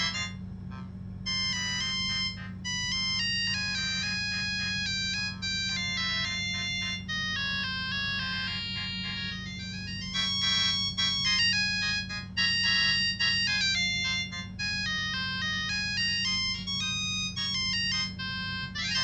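Samsung SGH-T108 mobile phone playing one of its built-in ringtones: a bright synthesized melody of quick notes, several at once, over a steady low hum.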